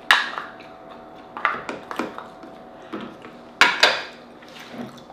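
Wooden spoon scraping and tapping inside an emptied Dungeness crab shell, a string of separate clicks and scrapes, with a louder clatter against a ceramic plate about three and a half seconds in.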